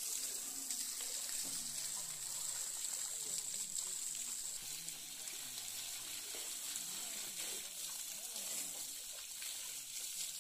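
Water spraying onto a tractor while it is washed: a steady hiss of spray and splashing.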